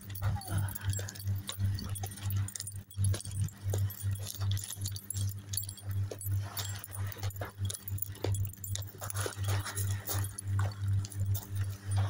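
Footsteps crunching on beach pebbles and sand, with many short irregular crunches. Under them runs a low hum that throbs evenly a few times a second.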